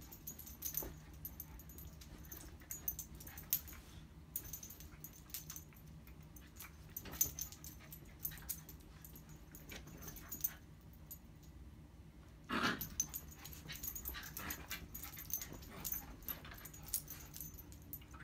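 Small dogs playing on a bed, with scattered light clicks and rustles and short dog vocal sounds, the loudest a brief one a little past the middle.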